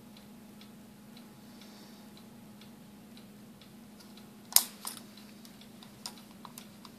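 Pistol-grip soldering gun humming steadily while it heats twisted wires and rosin-core solder is melted into the joint, with faint small ticks. About four and a half seconds in comes a sharp click, then a few softer knocks as the work is handled.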